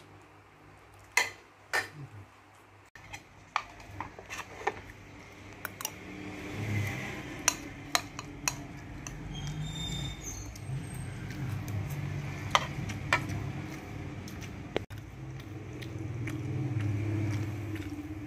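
A metal spoon clinking and tapping against ceramic bowls and a plate about a dozen times as food is scooped and stirred. A low rumble comes in about a third of the way through and stays under the clinks.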